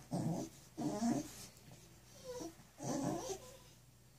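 A dog rolling on its back on carpet, making loud, happy vocal noises in four short bursts, the third fainter and higher. The dog is enjoying a back rub against the carpet.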